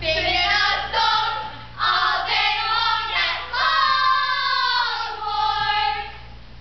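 Several young voices singing together a cappella in three held phrases, fading near the end.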